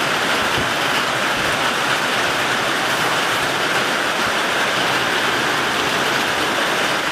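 Heavy rain pouring down, a steady even hiss heard from inside a wooden barn.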